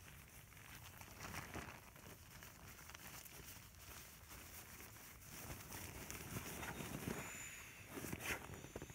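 Sleeping-mat pump sack being opened and filled with air: faint rustling and crinkling of its waterproof fabric, with a couple of sharper clicks near the end.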